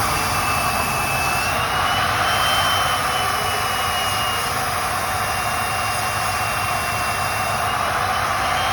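A shop machine running steadily: a loud hiss with a thin high whine that drifts slightly up and down in pitch.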